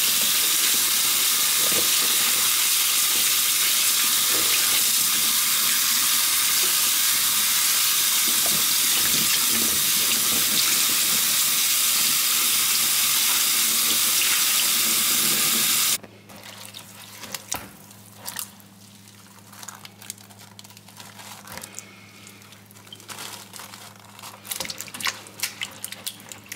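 Cold kitchen tap running steadily through a mesh sieve of wild garlic seeds and splashing into a bowl in a stainless steel sink. The water stops abruptly about two-thirds of the way in. After that there is a faint low hum, with small wet clicks and splashes from a hand moving the wet seeds in a bowl.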